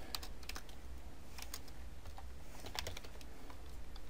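Computer keyboard being typed on in short clusters of keystroke clicks, a few keys at a time with pauses between, over a low steady hum.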